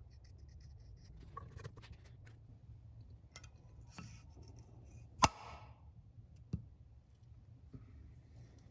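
Faint small taps and scratches of hand work on a bare cylinder head, then a sharp metallic click with a brief ring about five seconds in as the exhaust valve is dropped back onto its seat, and a smaller tap about a second later.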